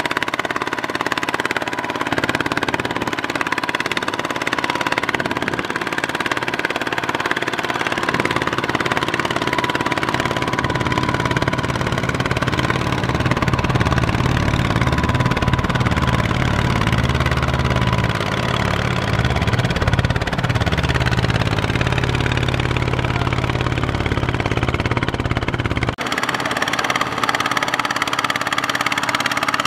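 Single-cylinder diesel engine of a two-wheel hand tractor running hard under load as it hauls a loaded rice trailer through deep sticky mud. Its speed wavers, sagging and picking up again in the middle as the mud-caked wheels bog down.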